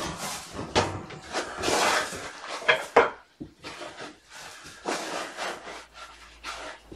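Kittens playing close by: irregular bumps, knocks and rustling, loudest in the first three seconds and sparser after that.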